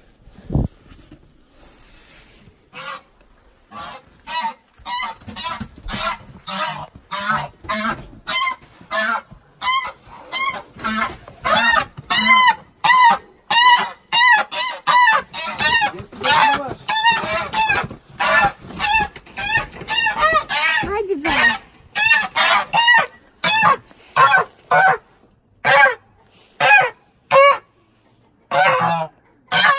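Grey domestic geese honking loudly in alarm while being grabbed and handled, a long run of short repeated honks about one to two a second that starts a few seconds in.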